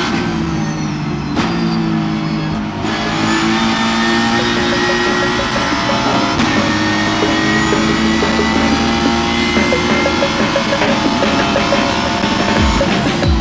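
Ford Mustang race car's V8 engine heard from inside the cockpit, running at racing speed, with background music playing along under it and growing near the end.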